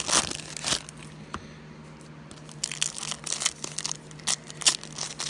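Foil trading-card pack wrappers crinkling and tearing as packs are ripped open by hand. There is a burst in the first second, a short lull, then a run of crinkles from about halfway through.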